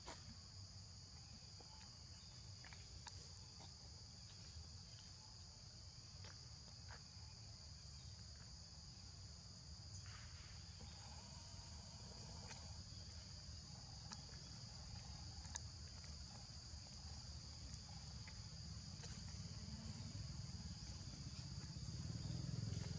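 Faint, steady chorus of insects: a continuous high-pitched buzz at two pitches, over a low rumble that swells slightly near the end.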